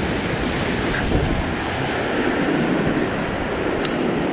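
Ocean surf washing up and back over the sand at the water's edge, a steady rush of small breaking waves.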